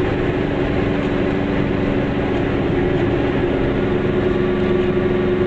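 Car engine and road noise heard from inside the cabin while cruising at a steady speed: a continuous, even drone.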